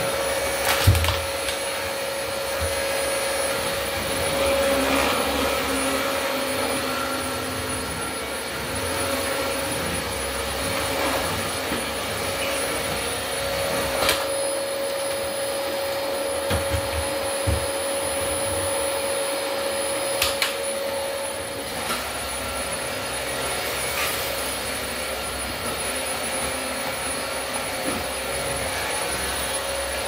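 Dyson DC25 Animal upright vacuum cleaner running steadily, its motor holding one steady whine. A few sharp knocks break in as the machine is bumped and moved across a wood floor.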